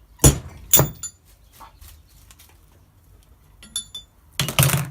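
Metal parts and tools knocking and clinking on a workbench during work on a car's rear differential: two sharp knocks about half a second apart near the start, a short ringing clink just before four seconds, then a quick cluster of knocks near the end.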